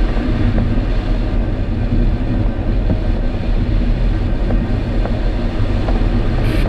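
Steady rush of airflow over an ASW27 glider's canopy and fuselage, heard inside the cockpit as a loud, even low rumble with a few faint ticks.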